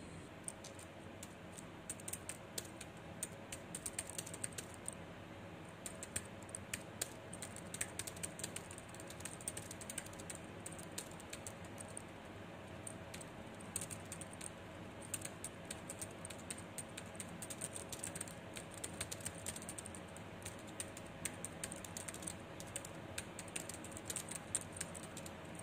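Typing on a keyboard: quick, irregular key clicks in runs, with a couple of short pauses.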